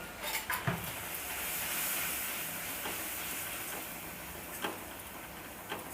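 Tomato-and-spice masala paste sizzling in hot mustard oil while being stirred, with a few clicks of the spoon against the pan. The sizzle swells about a second in, then eases.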